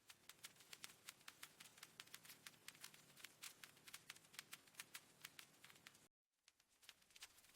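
Mechanical keyboard keys tapped in quick, uneven succession, several faint clicks a second, with a brief break about six seconds in.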